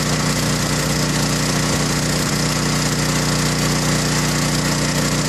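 Champion 7000/9000-watt dual-fuel portable generator's single-cylinder four-stroke engine running at a steady, unchanging speed, with a loud, even hum.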